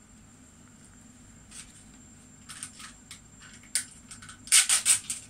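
A few short, sharp clicks and scrapes, with a tight cluster of louder ones near the end, over a faint steady low hum.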